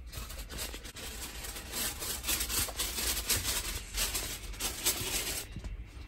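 Rustling and rubbing close to the microphone in irregular bursts, louder from about two seconds in and stopping about half a second before the end.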